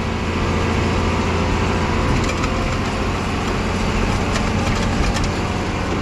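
Farm tractor engine running steadily under way, heard from the driver's seat, with a few light rattles about halfway through.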